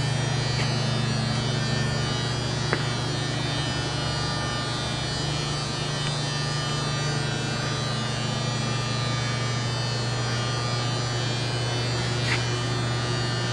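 Steady low electrical hum with a faint buzzing haze above it, and a single light tick about three seconds in.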